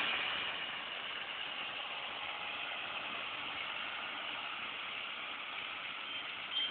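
John Deere 6830 tractor running steadily as it pulls a McHale Fusion 2 baler through the field, heard as an even, hissy drone with no clear engine note.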